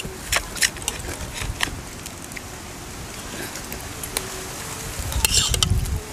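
Eating at a table: scattered light clicks and clinks of spoons against plates and bowls, with a louder rustling burst and low rumble about five seconds in.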